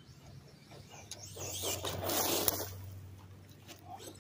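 Traxxas Slash 2WD RC truck, geared with a 16-tooth pinion and 56-tooth spur, driving hard on loose dirt: electric motor and gear whine with tyres scraping and throwing dirt. It swells about a second in, is loudest a little past two seconds, with a sharp click then, and fades as the truck drives off.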